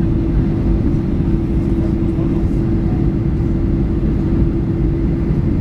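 Steady cabin noise inside a Ryanair Boeing 737-800 on its approach: a dense low rumble of jet engines and airflow with a steady hum held throughout.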